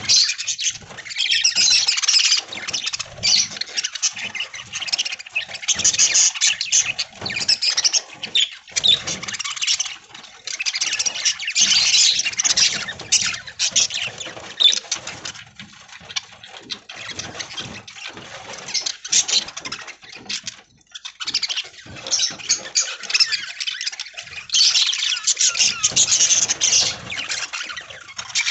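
A flock of budgerigars chattering: a dense stream of short, rapid high-pitched chirps. It comes in busy spells, with quieter stretches about a third of the way in and again past the middle.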